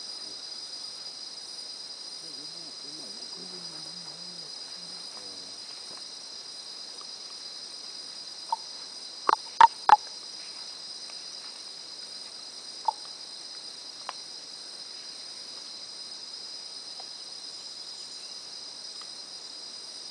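Steady high-pitched insect chorus, with a quick cluster of four or five sharp knocks about halfway through and two single knocks a few seconds later.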